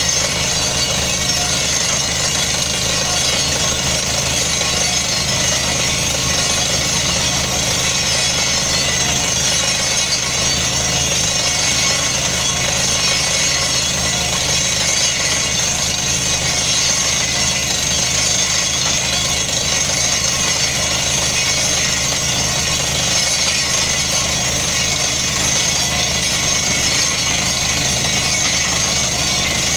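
Truck-mounted borehole drilling rig running steadily while air-drilling: the rig's engine and compressor running under load, with the drill working in the hole and compressed air blowing dust and mist out of the borehole as a steady high hiss.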